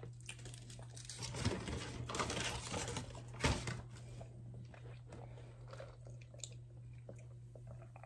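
Close-miked chewing and crunching of food, busiest in the first half with a loud crunch about three and a half seconds in, then sparser, over a steady low hum.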